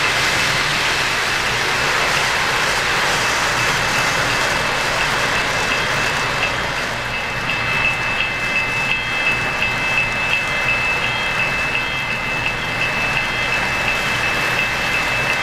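O-gauge model freight train rolling past on its track, with a steady rolling rumble and a thin steady high tone over it. From about halfway the wheels click regularly over the rail joints, about one and a half clicks a second.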